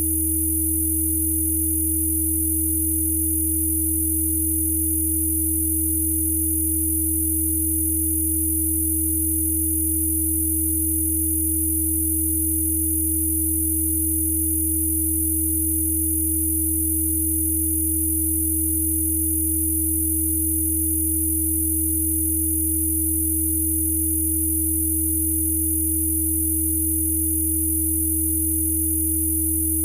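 Electronically generated Rife frequency tones: several pure tones sounding together and held steady, a deep hum, a tone a little higher, and a very high whistle.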